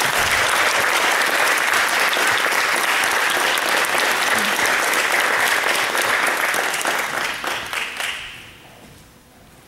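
Audience applauding, dying away about eight seconds in.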